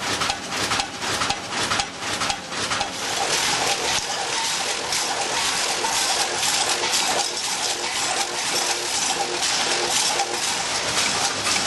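Snack-food packaging line running: a dense, crisp clatter of potato chips tumbling through the stainless steel buckets of a Yamato Omega 314S multihead weigher, with rapid clicking, feeding a vertical form-fill-seal bagmaker. The clicks stand out more sharply in the first couple of seconds before blending into a steady rattle.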